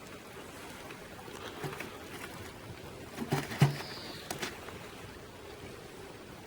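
Several short clicks and knocks, some with a low thud, the loudest about three and a half seconds in, over a faint steady background hiss.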